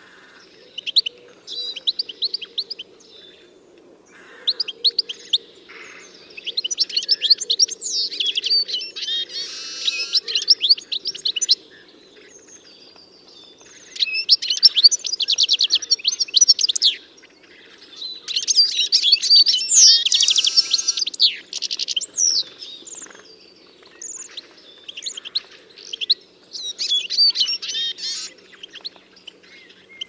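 Small songbirds singing: phrases of rapid, high chirps and trills lasting one to four seconds, separated by short pauses, with a shorter run of chirps near the end.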